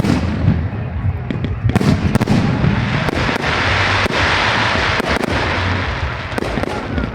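Fireworks display: a fast run of sharp bangs from shells bursting, with a dense crackle that swells about halfway through, over a low rumble.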